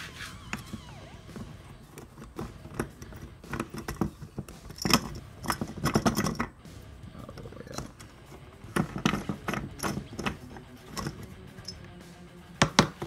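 A screwdriver backing steel screws out of a satellite-dish LNB's cast-aluminium housing, then irregular clicks, scrapes and knocks as the plastic cover is worked off and parts are handled on the bench, with a sharp clatter near the end.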